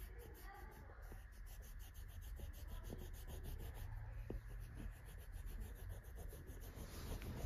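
Coloured pencil scratching on paper in quick, even back-and-forth strokes as an area is shaded in.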